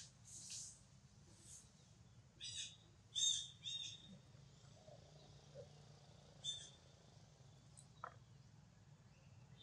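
Short, high-pitched animal chirps: a quick run of three between about two and a half and four seconds in, and one more a little later, all faint. Two brief soft hissy rustles come near the start.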